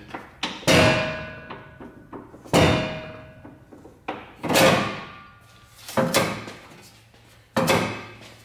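Heavy metallic knocks, five of them about every one and a half to two seconds, each ringing briefly as metal parts of the truck's front end are worked apart.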